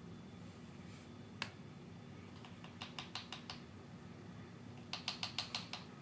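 Cockatoo's claws clicking on a tile floor as it steps about: a single click, then two quick runs of six or seven clicks.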